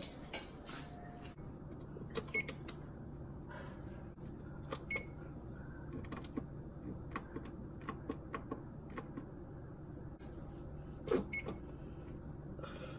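Oven control-panel keypad being pressed to set the bake temperature and cook timer: a scattered series of short electronic beeps and button clicks over a low steady hum.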